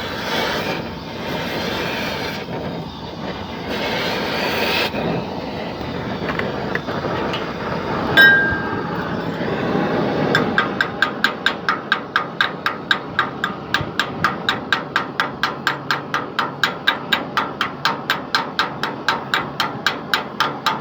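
Steady mechanical noise with short bursts of hissing, a single metallic clank, then a rapid, even metallic clicking about four or five times a second that continues to the end.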